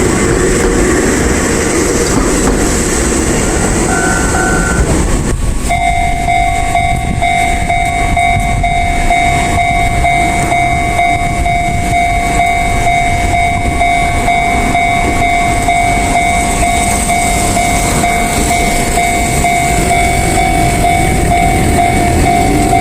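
An Enoshima Electric Railway train running past at a level crossing. About six seconds in, a steady electronic tone starts and holds over the rumble.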